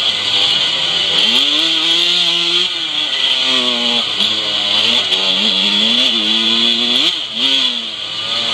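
125cc two-stroke motocross bike engine revving hard from on board, its pitch climbing, holding and dropping again and again as the throttle opens and shuts through the corners and gear changes. There is a sharp rev-up about seven seconds in, followed by a brief drop.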